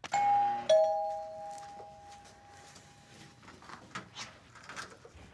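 Two-note doorbell chime, ding-dong: a higher note, then a lower one about half a second later, both ringing on and fading away over about three seconds.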